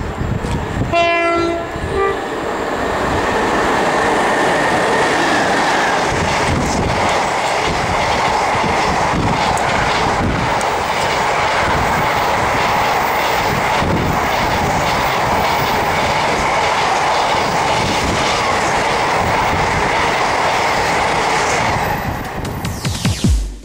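Class 92 electric locomotive sounding its horn briefly about a second in, a short second note following. Then its long train of container wagons passes at speed: a steady rumble and clatter of wheels on the rails.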